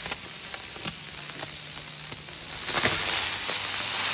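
Helicopter firework spinning on the ground, giving a steady hissing fizz with scattered sharp crackling pops, swelling briefly about three seconds in.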